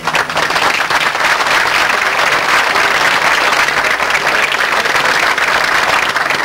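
A crowd applauding, steady continuous clapping.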